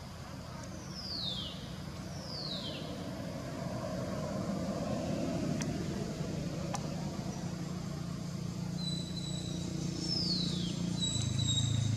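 Steady low rumble of engine traffic, growing louder. Three short high calls slide down in pitch over it, and a few held high whistled notes come near the end.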